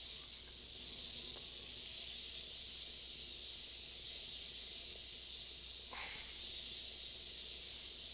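Static hiss from a software-defined radio receiver tuned across the 27 MHz CB band, with no station coming through, and a brief swell about six seconds in.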